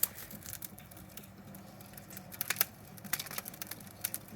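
Burning off-brand charcoal crackling and popping: irregular sharp snaps with a cluster of louder pops about two and a half seconds in. The charcoal is spitting sparks, 'like exploding in there'.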